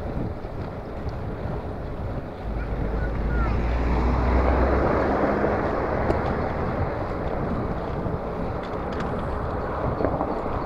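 Wind buffeting the microphone of a handlebar-mounted camera on a moving bicycle, with a low rumble. The noise swells to its loudest about three to five seconds in, then settles back.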